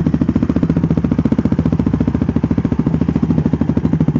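Quad (ATV) engine running steadily at low revs, with an even, rapid putter of exhaust pulses.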